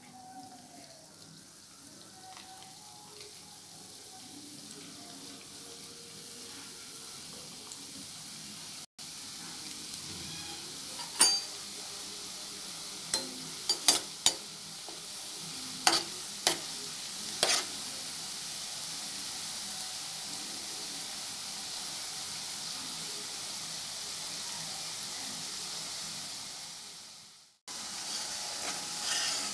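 Cashew-shaped maida dough pieces deep-frying in hot oil in a steel kadai, a steady sizzle that grows louder after about nine seconds. Several sharp clicks between about 11 and 17 seconds in as a slotted spoon stirs against the pan.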